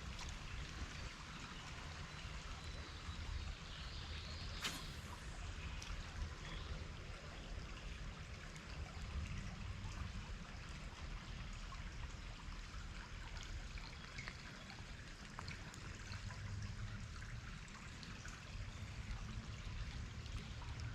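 Creek water running and trickling over shallows, a steady rushing hiss, with one sharp click about five seconds in.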